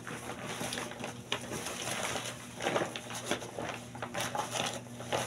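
Rustling and crinkling of a rain jacket's synthetic fabric as it is pulled on over the shoulders and arms, in irregular bursts, over a steady low hum.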